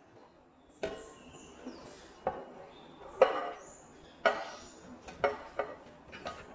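Plastic spatula knocking and scraping on a baking tray as roasted butternut squash cubes are pushed off into a glass bowl, about seven sharp knocks roughly a second apart.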